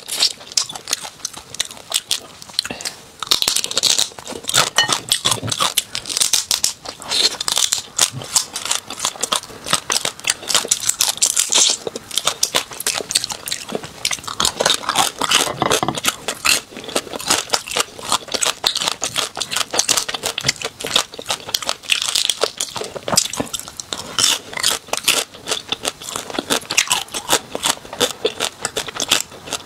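Close-miked cracking and crunching of small chili-oil crabs: shells being snapped apart by hand, bitten and chewed. The sound is a dense, irregular run of crisp crackles and crunches.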